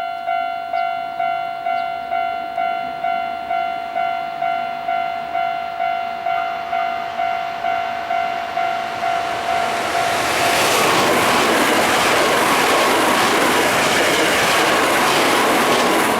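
Japanese level-crossing warning bell ringing steadily, its electronic ding repeating a little under twice a second. About ten seconds in, the rushing noise of a passing train rises and drowns it out.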